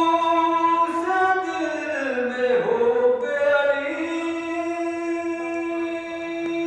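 A man singing a devotional poem unaccompanied into a microphone, in long drawn-out melodic phrases; near the end he holds one steady note for a few seconds.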